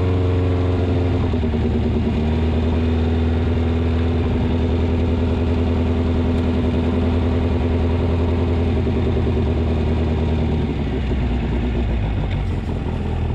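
VW engine of a rock crawler buggy running under way, holding a steady note that steps down in pitch about a second in and changes again near the end. The engine is still a little cold.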